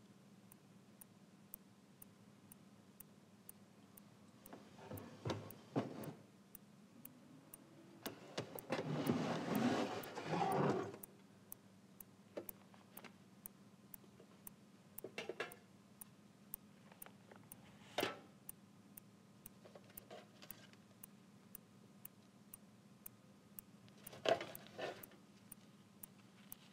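Hands handling flowers and paper wrapping on a wooden table: rustling and crinkling, loudest for a few seconds about eight seconds in, with shorter rustles and light knocks later. A steady ticking runs underneath at about two ticks a second.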